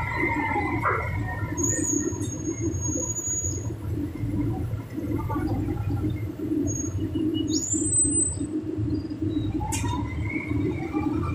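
Excavator's engine running steadily with a low rumble as it holds a load over the cone crusher, with a few short high whistles coming and going and a squeal that rises near the end.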